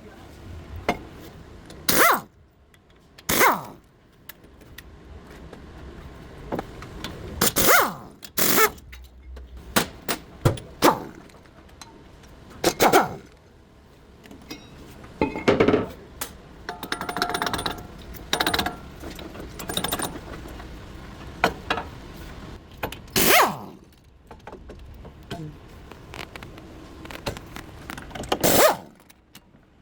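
Hand tools and metal parts clanking and scraping during front wheel bearing work: sharp knocks every few seconds, with a brief metallic ring partway through.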